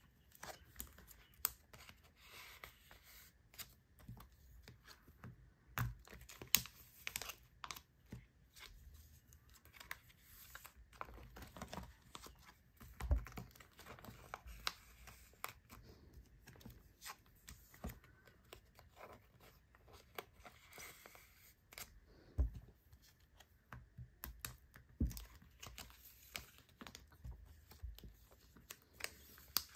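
Clear plastic binder sleeves crinkling and rustling as photocards are pushed into their pockets, with many irregular soft clicks and a few louder taps.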